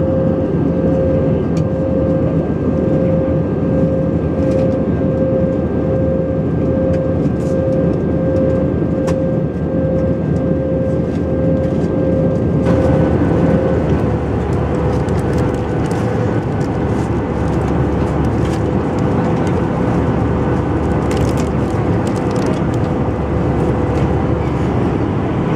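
Airbus A320 cabin noise in flight: a steady jet engine and airflow drone with a held whine. About halfway through, the noise turns a little brighter.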